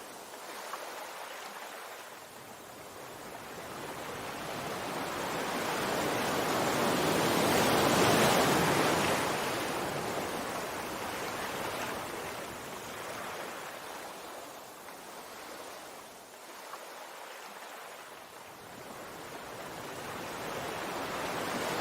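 Sea waves washing onto a shore: one wave swells to its loudest about eight seconds in and draws back, and another builds near the end.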